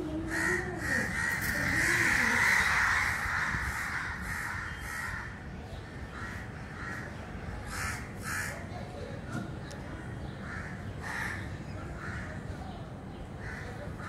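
Crows cawing: a dense run of overlapping caws in the first few seconds, then single caws every second or two.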